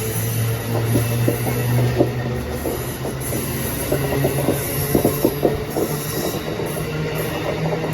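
A train running on the rails: a steady low drone with frequent, irregular clicks of the wheels over the track.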